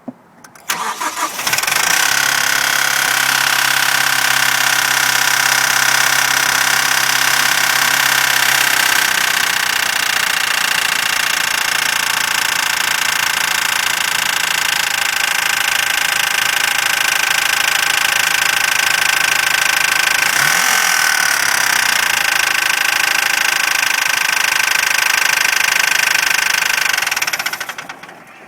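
Mazdaspeed 6's turbocharged 2.3-litre four-cylinder cranking, catching about a second and a half in, and idling with a clanking noise that the owner suspects comes from the turbo, the VVT valve or the timing chain. The engine is shut off near the end.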